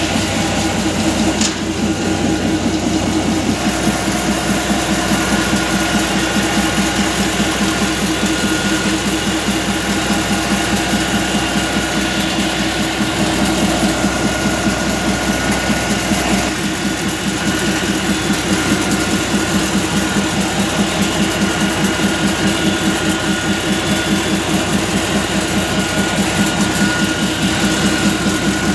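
Diesel locomotive engine running steadily, heard close up inside the engine compartment, with a rapid even pulsing beat and a thin steady whine over it.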